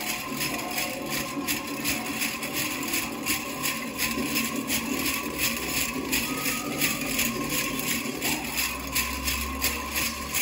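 Rolled metal cones of a jingle dress clinking and rattling together in a steady rhythm with the dancer's steps, over faint music.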